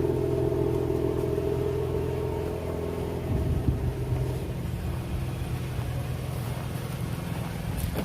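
Car engine running at a steady idle, a deep even hum with no revving.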